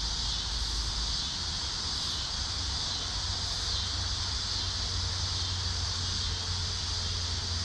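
A steady, high-pitched chorus of insects droning without a break, over a low steady rumble.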